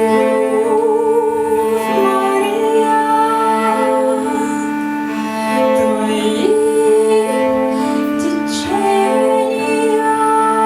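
Two cellos playing long bowed notes in a slow ensemble passage, with a woman's voice singing along, wavering on one held note.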